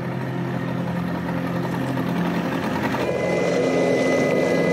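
A steady engine hum that changes abruptly about three seconds in to a helicopter's engine whine and rotor noise, heard from inside the cabin at the open hoist door.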